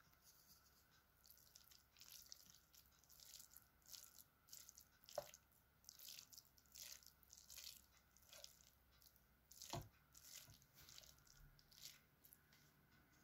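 Faint scraping and squishing of a wooden spoon stirring mashed carrots in a metal pot, in irregular strokes, with two sharper clicks about five and ten seconds in.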